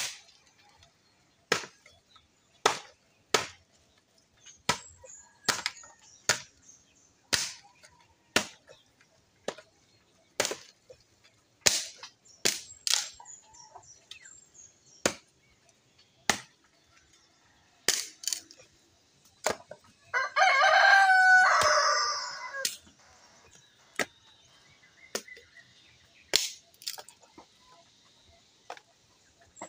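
Machete chopping sticks of firewood: sharp, separate chops about once a second. A rooster crows once for about two seconds, a little past two-thirds of the way through.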